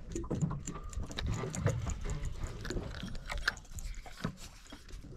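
Scattered small clicks and light knocks of fishing tackle being handled as a needle lure with treble hooks is rigged on the line, over a low background rumble.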